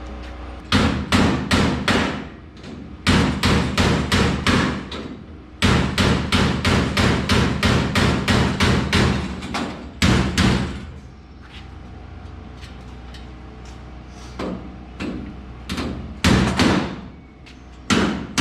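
A hammer beating on metal in quick runs of blows, about four a second, with short pauses between the runs and a few scattered blows in the middle stretch. It is the sound of bent race-car parts being straightened during crash repairs.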